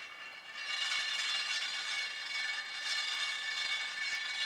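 Trued Honda 50 front spoked wheel spinning on its hub bearings in a truing stand, a steady high whirr with faint ticking, while its radial run-out is checked with a dial gauge.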